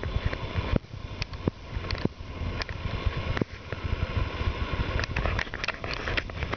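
Horses' hooves walking through a thick layer of dry fallen leaves, with irregular rustling and crunching steps over a steady low rumble.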